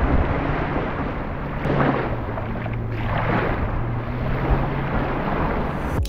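Wind buffeting the microphone over the wash of sea waves on a beach, swelling twice in the first half, with a low steady drone underneath.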